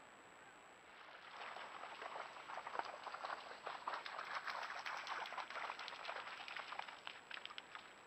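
White-tailed deer bounding through shallow creek water: a run of irregular splashes that starts about a second in and eases off near the end.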